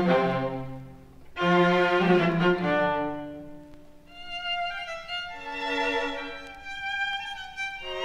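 Violin music playing back from a vinyl record, in long notes with vibrato that swell and fade phrase by phrase. The record has just been vacuum-cleaned, and the loud pops are gone with lower surface noise.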